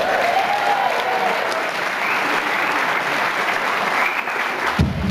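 Theatre audience applauding, a steady clatter of clapping hands. Just before the end, the band's drums come back in with low beats.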